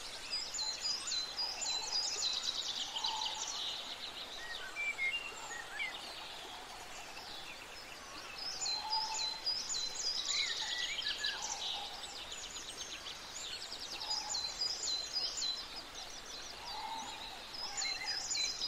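Birds chirping and trilling in a background soundscape: bursts of high, quick chirps and trills that swell and fade in phrases, with softer lower calls in between.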